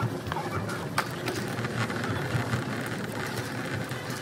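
Supermarket background noise: a steady low hum with a sharp click about a second in.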